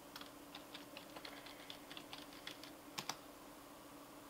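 Faint, quick key taps on a computer keyboard as a password is typed, ending with two louder strokes close together about three seconds in. A faint steady hum lies underneath.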